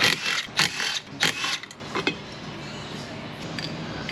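Tools and suspension parts being handled: four sharp clanks and rattles in the first two seconds, then a steady low hum.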